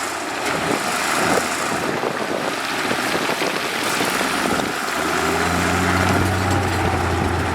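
Heavy diesel construction machinery running over a steady hiss of noise. A low engine drone grows stronger about two-thirds of the way through.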